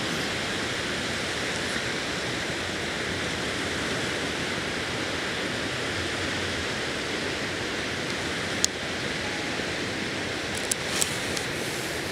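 Small waves breaking and washing onto a mudflat shore, heard as a steady rushing hiss. A sharp click comes about nine seconds in, and a few lighter clicks follow a couple of seconds later.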